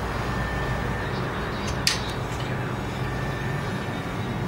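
A single sharp metallic click about two seconds in, as a hand works the steel mechanism of a homemade PCP air rifle, over a steady low hum and hiss.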